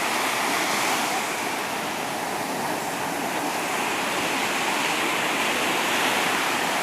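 Sea waves washing ashore: a continuous rush of surf that swells and eases gently.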